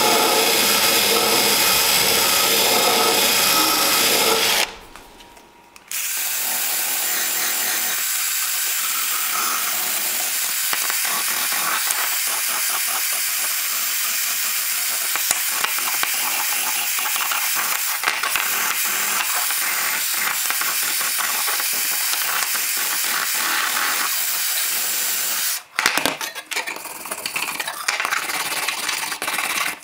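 Festool cordless drill spinning a small brass wire wheel brush against the rusty steel legs of an old drawing compass, brushing off rust with a steady scratching whir that stops briefly about five seconds in. Near the end it gives way to the uneven scratching strokes of a hand wire brush on the metal.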